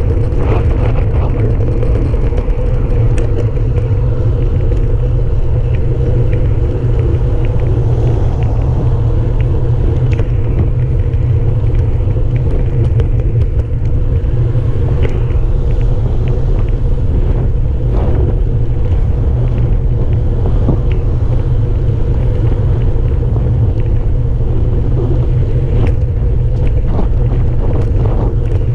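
Wind buffeting the microphone of a handlebar-mounted camera on a moving bicycle: a loud, steady low rumble mixed with tyre hum on the road surface, broken by occasional small clicks and rattles from bumps.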